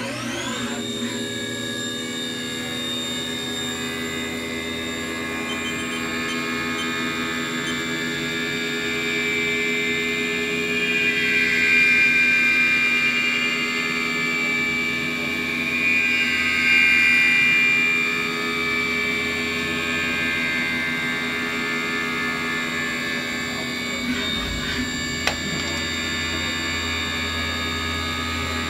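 CNC vertical milling machine taking a finishing cut on a metal motorcycle triple-tree plate. The spindle spins up at the start, then runs with a steady whine and coolant hiss, and the cutting noise swells louder twice in the middle as the end mill works the plate. There is a short click near the end.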